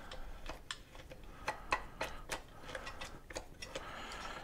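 Irregular light clicks and knocks of hard plastic parts and screws being handled and fitted together on a plastic downrigger swivel mount, with a brief scrape near the end.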